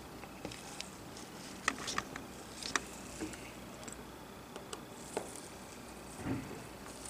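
A few faint clicks and light handling noises of a small Phillips screwdriver working a screw out of the metal shield bracket on an iPhone 6 screen assembly, with a soft thump near the end.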